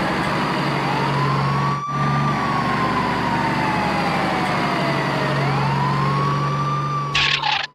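Emergency-vehicle siren wailing, slowly rising and falling in pitch, over a steady engine hum. Both cut out briefly about two seconds in.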